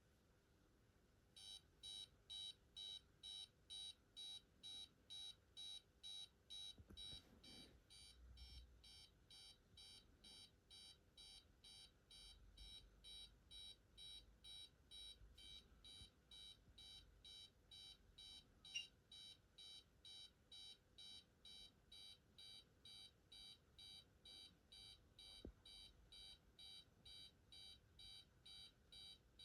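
Pyronix Paragon Super intruder alarm system beeping: a faint, high-pitched, evenly pulsed beep, about two a second, that starts about a second and a half in and keeps going.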